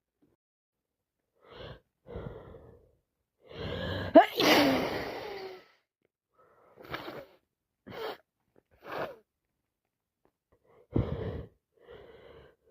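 A person sneezing: gasping breaths build up to one loud, sudden sneeze about four seconds in, followed by several short, quick breaths and another smaller burst near the end.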